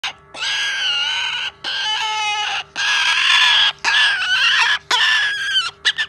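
A young white cockatoo screeching: a run of five harsh calls of about a second each, with short breaks between them, the second one broken into a fast rattling pulse.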